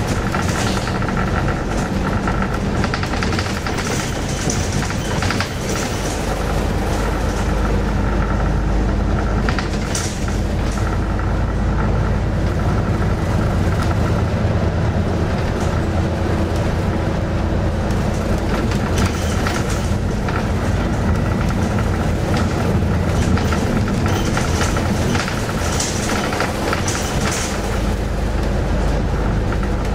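A bus in motion, heard from inside the saloon: a steady low engine and road rumble with a faint whine, and scattered short rattles and clicks from the body.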